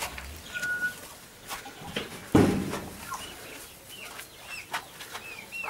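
Free-range chickens and other poultry calling: clucks and a series of short, high peeps, with one louder sudden call about two and a half seconds in.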